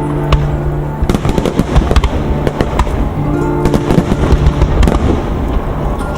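Fireworks bursting in quick succession, a dense run of sharp bangs and crackles, over music with held notes.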